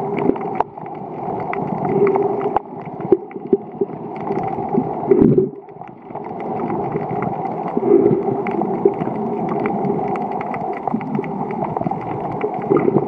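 Underwater sound picked up by the camera: a constant muffled wash with louder gurgling swells of bubbles about every three seconds, and many scattered sharp clicks.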